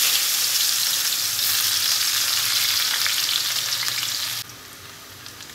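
Chopped onion sizzling as it fries in hot oil in a pan, a loud steady hiss that drops off sharply about four and a half seconds in.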